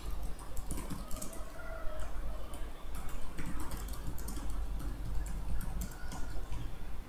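Typing on a computer keyboard: a run of irregular key clicks as a line of text is entered.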